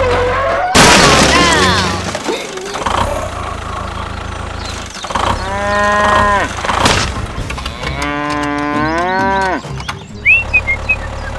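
Cows mooing: a loud, rough call about a second in, then two long moos around the middle, each bending in pitch. A steady low hum runs underneath, and a few short high chirps come near the end.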